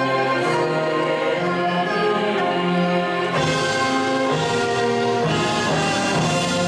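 Military band playing instrumental music, led by brass, in a piece that sets Korean traditional melody and rhythm against Western band sound. It plays held chords, and the full band swells in about three seconds in.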